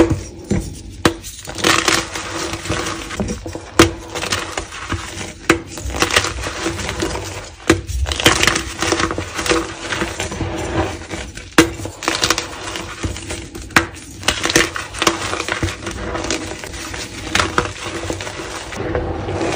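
Dyed gym chalk blocks snapped and crushed between bare hands: a run of sharp cracks and dry crunching as the chalk crumbles into powder.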